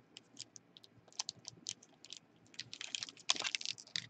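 Trading cards and their pack wrapping being handled: a run of light clicks and rustles, thickest about three seconds in.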